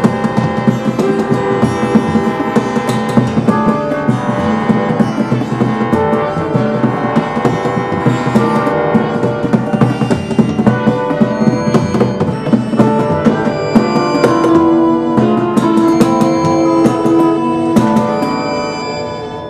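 Freeform instrumental music: plucked strings over drums struck in quick, uneven beats, fading out near the end.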